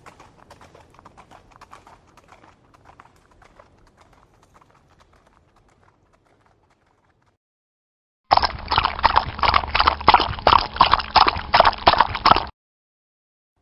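Horse galloping: fast hoofbeats that fade away over the first several seconds. After a short silence, a loud, close gallop starts abruptly about eight seconds in and cuts off suddenly some four seconds later.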